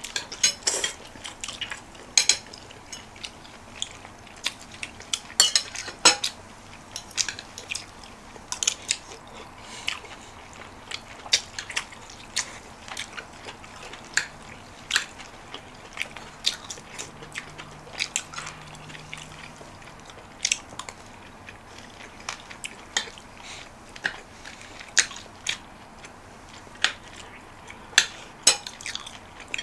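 Close-up eating sounds: chewing and biting, with frequent sharp clicks of a spoon against a bowl of beef soup, scattered irregularly throughout.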